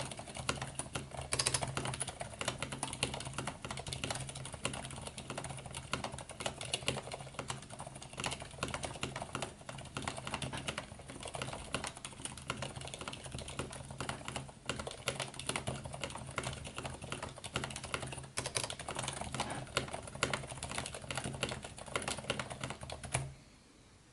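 Fast, continuous typing on a mechanical keyboard with stock Cherry MX Silent Black linear switches and PBT keycaps in an acrylic case: a dense stream of muted key strikes that stops about a second before the end.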